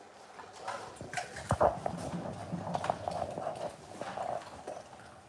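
A bully-breed dog eating raw food from a stainless steel bowl. The bowl gives irregular knocks and clatters as the dog eats, the loudest about a second and a half in.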